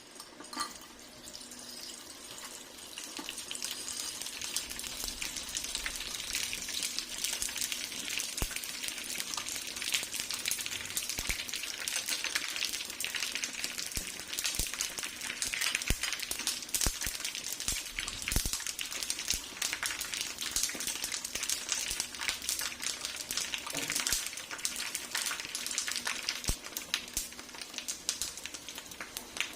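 Pork skin frying in hot oil: a steady sizzle with frequent crackles and pops. It swells over the first few seconds, then holds.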